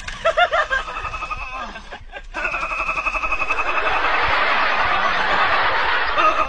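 Laughter: a quick run of pitched 'ha' pulses, then after a short break a louder, drawn-out pitched sound with a hissy edge that swells through the rest.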